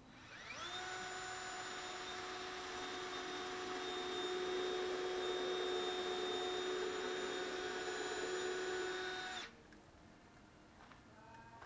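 Power drill spinning up, running at a steady pitch for about nine seconds, then stopping abruptly.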